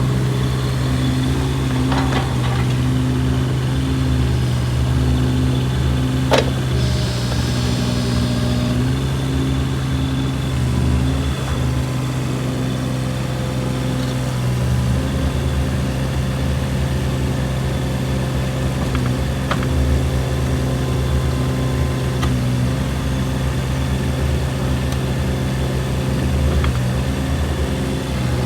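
Kubota KX016-4 mini excavator's three-cylinder diesel engine running steadily, with a few light clicks and a single sharp knock about six seconds in.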